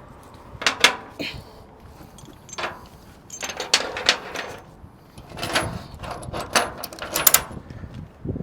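A series of irregular sharp knocks and clanks, about a dozen, some coming in quick clusters.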